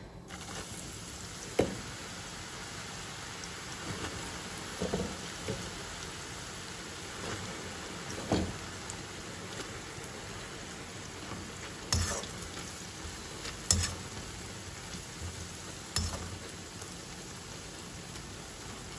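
Pieces of Arabic flatbread (khubz) frying in hot oil in a pan, giving a steady sizzle. A handful of short knocks come from the metal slotted spatula stirring them against the pan.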